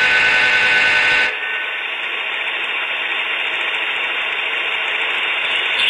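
HO-scale Dash 8 diesel locomotive model's sound-system horn blowing and cutting off about a second in. It is followed by a steady running noise from the model train.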